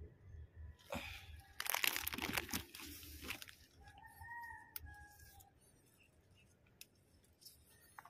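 Leaves and stems rustling and crackling close to the microphone as plants are handled, for about two seconds. About four seconds in, a rooster crows once.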